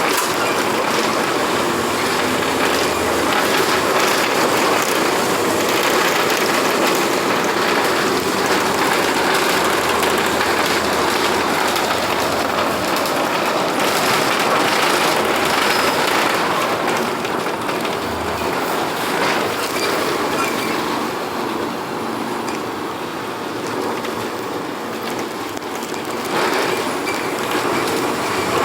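City bus driving with its body shaking and rattling loudly, a dense, continuous clatter of loose parts over the running noise.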